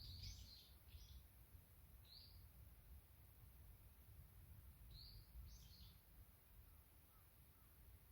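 Faint short, high chirps of a small wild bird, in a few brief clusters: at the start, about two seconds in, and again about five seconds in. Under them runs a steady low rumble.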